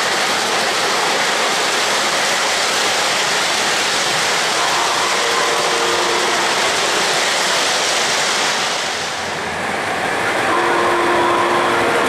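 O-gauge model trains running on three-rail track: a steady rolling rumble of metal wheels on rail with a faint hum, dipping briefly about nine seconds in.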